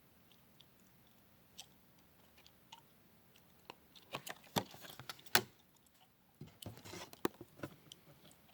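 Small parts being handled: quiet for about four seconds, then two clusters of short sharp clicks and rattles, one about four seconds in and another about seven seconds in.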